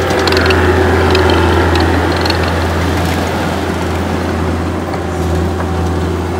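John Deere CT322 compact track loader's diesel engine running steadily as the machine pushes a bucket load of dirt, with a few light clicks over the engine hum.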